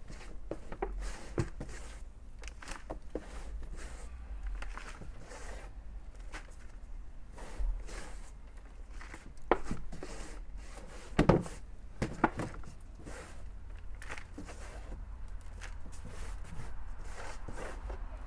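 Potting soil and sweet potatoes being dug out of a container garden bag by hand: irregular rustling, scraping and soft thuds, with a few sharper knocks around the middle.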